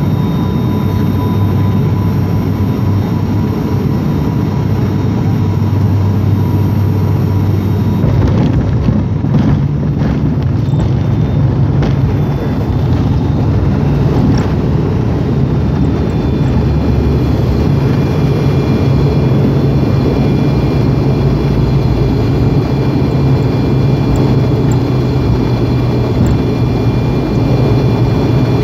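Airliner's engines and rolling noise heard from inside the cabin as the plane slows on the runway after touchdown, a steady loud rumble with a low hum. About eight seconds in the hum shifts to a slightly higher note, with a few brief knocks.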